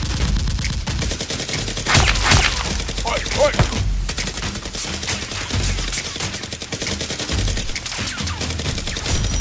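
Automatic gunfire sound effects: a dense, continuous fusillade of rapid shots, dubbed over Nerf blasters being fired.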